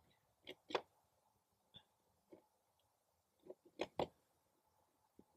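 Quiet, broken by a few short, soft clicks and taps, loudest in pairs just under a second in and about four seconds in: a tape measure being handled and set against a paper target on cardboard.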